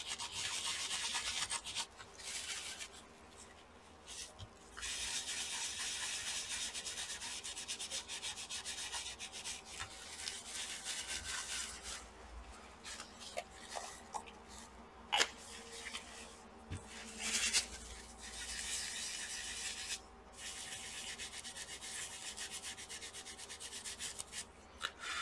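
Scrubbing and wiping on a laptop's copper heat-pipe cooler to clean old thermal paste off it, in stretches of a few seconds with short pauses. A couple of sharp clicks come about two thirds of the way in.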